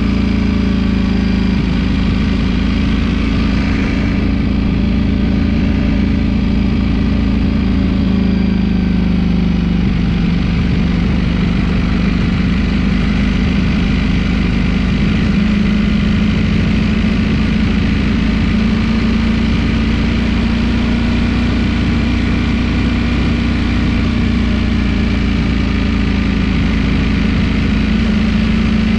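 Ducati Streetfighter V4 S's 1103 cc V4 engine running under way at moderate, fairly steady revs. The engine note drops a few seconds in, then rises gently again.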